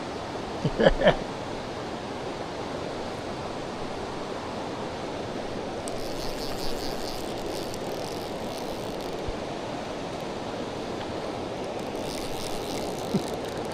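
Steady rush of a mountain trout river's flowing water, with a brief voice call about a second in.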